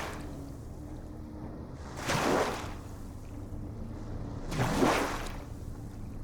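Small ocean waves washing in: two surges of hissing wash about two and a half seconds apart, over a steady low rumble of surf.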